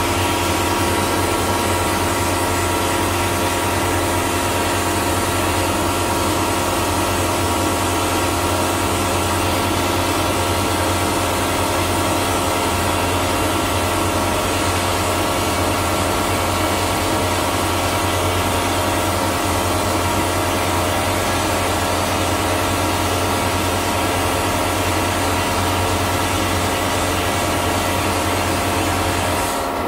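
Vapor blasting: a 3D-printed wet-blasting nozzle sprays a steady hiss of compressed air and water-abrasive slurry onto a metal part, over a steady machine hum. The spray cuts off just before the end while the hum carries on.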